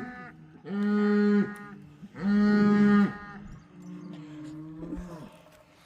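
Cattle mooing: two long, steady moos in a row, then a fainter, longer moo.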